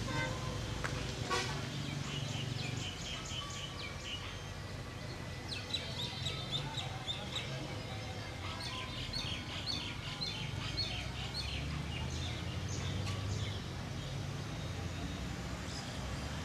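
WDM-3A diesel locomotive's engine making a steady low rumble as it approaches slowly, running light. Birds chirp over it in several quick bursts.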